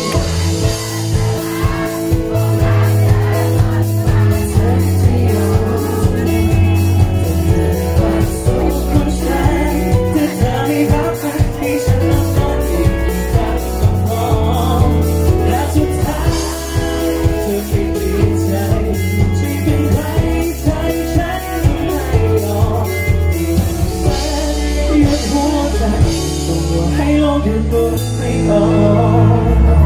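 Pop song played loud through a PA with a steady beat and bass line, a male singer singing live over it.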